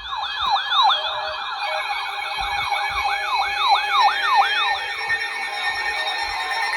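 Several electronic siren alarms sound at once, a tangle of overlapping rising-and-falling wails over steady alert tones. They are weather radio alarms set off by a new warning alert.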